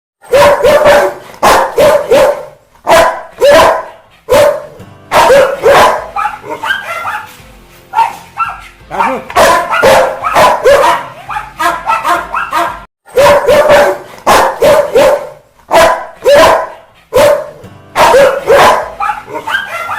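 Rottweiler barking angrily and loudly, in quick runs of several barks with short pauses between runs.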